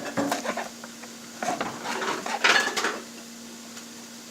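Kitchen dishes and utensils clattering and clanking, with scattered knocks and a louder cluster about two and a half seconds in, over a steady low hum.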